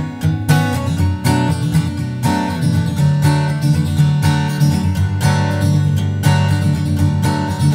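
Background music: an acoustic guitar arrangement playing a steady run of notes.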